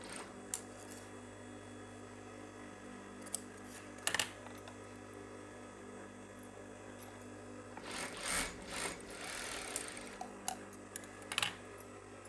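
Sewing machine's motor humming steadily at a low level, with light clicks and the rustle of satin fabric being handled and guided under the presser foot; the rustling grows louder about eight seconds in.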